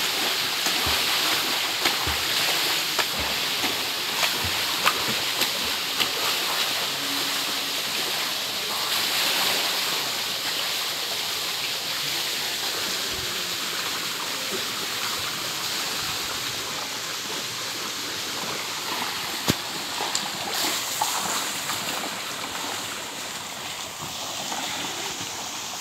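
Steady rush of running, splashing water, with a few sharp clicks in the first few seconds.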